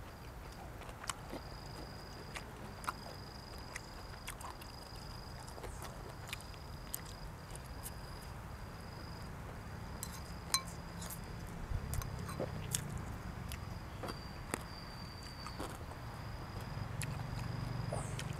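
Close-miked eating: scattered clicks and small crunches of chewing blood cockles and raw vegetables, a little louder near the end. Behind it an insect trills high and steadily in stretches of about a second with short breaks.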